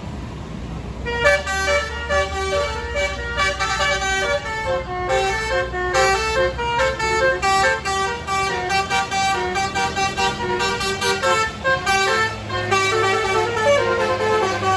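Tour bus's Basuri telolet horn playing a fast melody of short changing notes, starting about a second in, over the low steady running of the bus engine.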